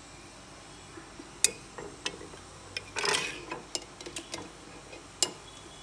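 Metal spoon clinking and scraping against a glass jar while scooping out its contents: a string of sharp, irregular clinks, with a short scrape about three seconds in.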